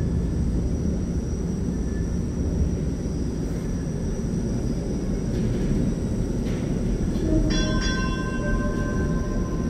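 Toronto TTC Flexity Outlook low-floor streetcar rolling slowly round a tight curve into an underground platform, a steady low rumble. About two-thirds of the way through, several high steady tones start and hold as it comes up to the platform.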